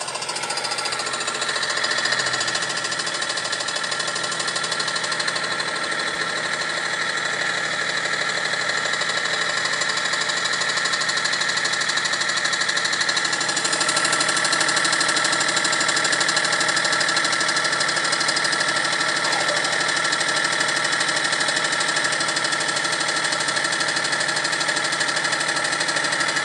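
BMW engine running with a steady, fast ticking rattle whose cause the owner does not know. It gets a little louder about halfway through.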